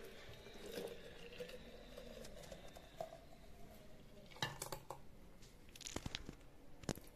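Thick milkshake pouring faintly from a steel mixer-grinder jar into a glass jug, with a few light clicks of jar and jug handling around four to five seconds in and again near the end.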